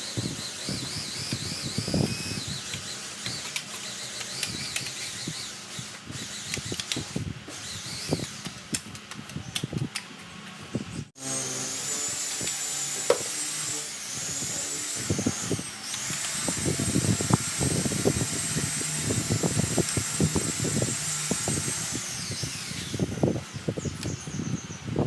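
Power sander running with a steady high whine on a van's body-filled tailgate, with rough scraping strokes beneath it. The whine starts after a sudden break about eleven seconds in, dips briefly twice, and winds down a couple of seconds before the end. Before it, wavering chirps sound over light scraping and tapping.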